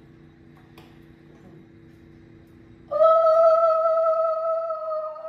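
Conch shell (shankha) blown in one long steady note that starts abruptly about three seconds in and holds to the end. Before it only a faint low hum.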